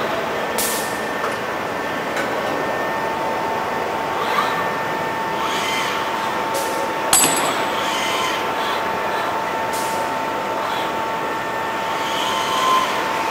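Steady industrial machinery noise from a robotic welding cell, with a steady whine setting in a few seconds in and a sharp click about seven seconds in.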